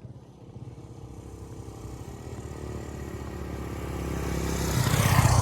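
A motor vehicle's engine approaching and passing close by, growing steadily louder to a peak near the end and then starting to fade.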